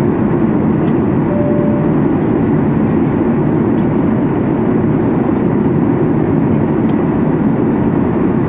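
Steady in-flight cabin noise of a Boeing 737 MAX 8-200 heard from a window seat over the wing: a deep, even rush of CFM LEAP-1B engine and airflow noise with a faint steady whine. A brief single tone sounds about a second and a half in.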